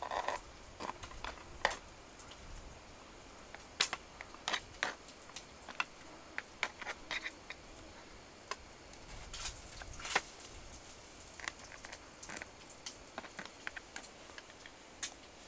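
Falling snow ticking faintly and irregularly, a scatter of light ticks and taps with a few sharper ones.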